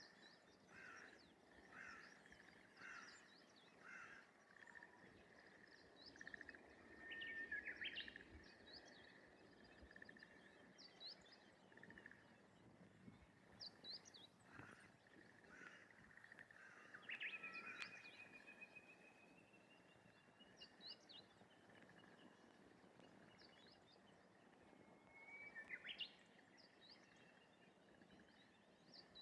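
Faint morning rice-paddy ambience of birds calling. A steady, pulsing call holds one pitch underneath, about once a second at first. Short chirps are scattered over it, and a long, slowly rising whistle comes about two-thirds of the way in.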